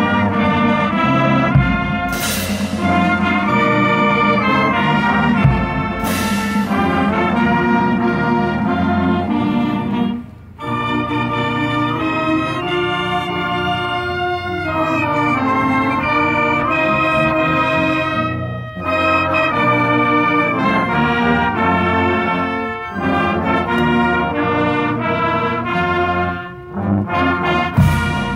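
Marching band playing a slow piece in sustained brass chords, with a cymbal crash about two seconds in and another about six seconds in, and short breaks between the phrases.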